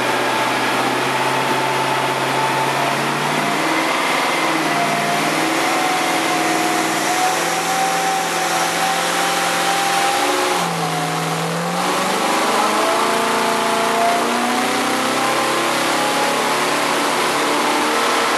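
1962 Studebaker 289 V8 running on an engine dyno, its note holding and shifting in pitch, with a brief dip and recovery about ten seconds in.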